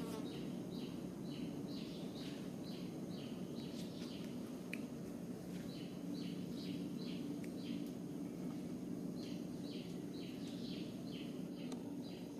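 A bird calling a rapid series of short, falling notes, about three a second, in bouts that pause twice, over a steady low hum.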